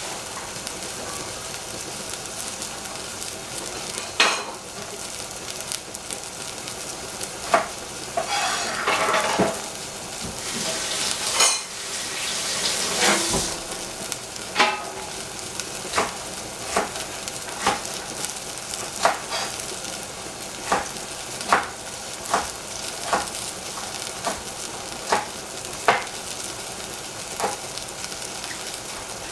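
Oyster mushrooms simmering and sizzling in stock in a saucepan over a gas flame, a steady low frying noise. A run of sharp knocks, about one a second, sounds through the second half.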